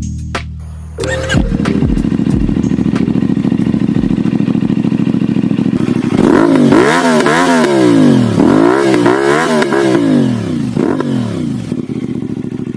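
CFMoto 450SR parallel-twin engine through an Akrapovic slip-on exhaust: it starts up about a second in and idles. From about halfway it is revved with several throttle blips that rise and fall in pitch, then drops back to idle near the end.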